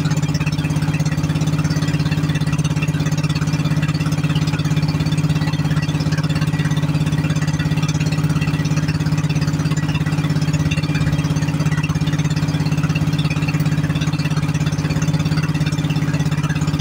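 Small engine of a motorized outrigger boat running at a steady speed, a constant even hum with no change in pitch or level.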